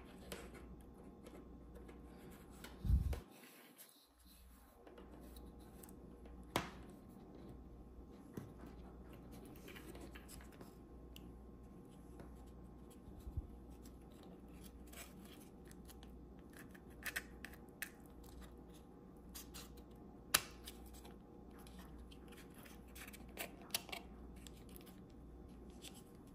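Light clicks, ticks and rustles of stiff paper model parts being handled and fitted together, with a dull thump about three seconds in, over a faint steady hum.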